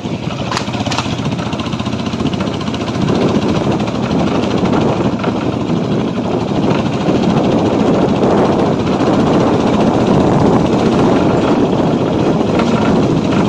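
Engine of a small motor vehicle running steadily, heard from on board as it travels along; it gets somewhat louder about three seconds in.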